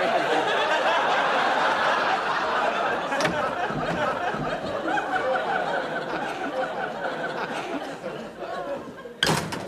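Studio audience laughing, loudest at first and slowly dying away. Just before the end there is a short, sharp noise.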